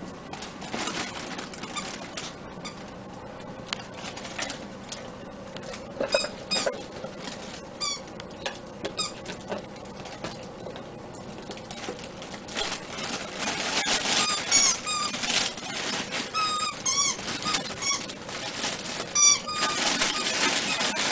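Maltese puppies giving short, high, squeaky yips and whines: a few in the middle and a cluster in the second half, over light clicks and scuffling.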